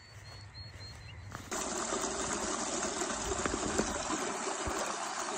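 Small rocky mountain stream splashing and gushing over a rock ledge, heard close up. It cuts in suddenly about a second and a half in, after a quiet start with a few faint bird chirps.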